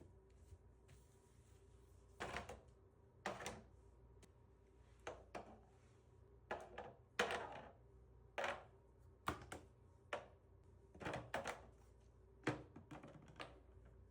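A run of about a dozen irregular knocks and clunks, spaced a second or so apart, from household objects being handled and set down during cleaning.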